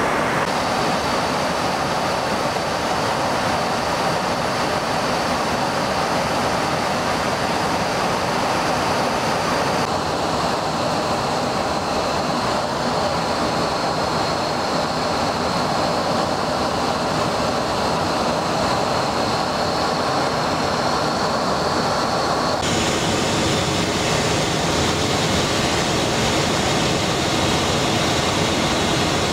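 Steady rushing noise of airflow and engines inside a Boeing 737 flight deck in flight, with a faint high whine. The sound shifts abruptly twice, about ten seconds in and again past twenty seconds.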